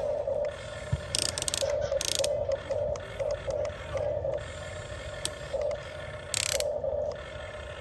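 Small electric gear motors of a Huina 1550 remote-control excavator whirring in repeated short spells, starting and stopping as the arm and boom are worked. There are a few brief scraping or rattling bursts.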